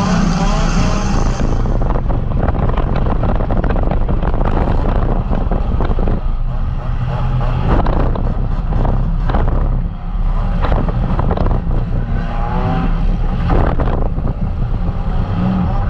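Compact demolition derby car's engine running loud inside the stripped cab, its pitch rising and falling as the driver works the throttle, with repeated sharp bangs and rattles of metal as the car hits and is hit.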